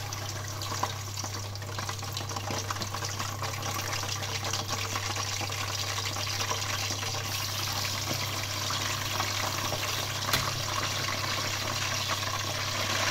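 Quail frying in hot oil in a pot: steady sizzling and crackling that grows gradually louder as more birds go into the oil. A couple of sharp clicks stand out, the loudest about ten seconds in, over a low steady hum.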